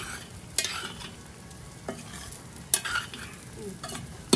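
A spoon stirring dried fish into a ridge gourd curry in a pan, the curry giving a steady sizzle, with the spoon knocking against the pan about four times.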